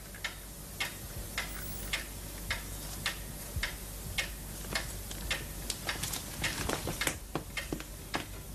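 Clock ticking steadily, about two ticks a second.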